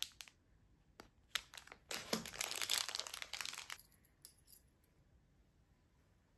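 Small metal rings and clips being handled on a table: a few sharp clinks, then a stretch of plastic packets crinkling from about two seconds in, dying away to a few light taps.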